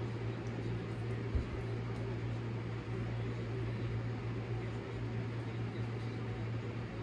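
Steady low mechanical hum, the room's background drone, with one soft low bump about a second and a half in.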